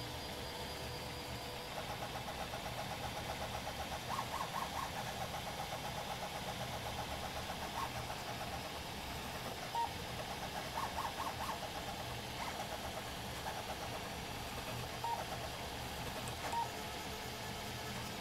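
Hypercube-style 3D printer's stepper motors singing in fast, warbling flurries of tones as the print head darts back and forth on a high-speed print, over a steady low hum.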